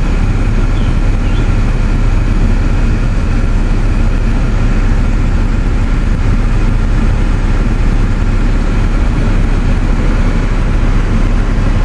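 Car engine running steadily, a constant low hum.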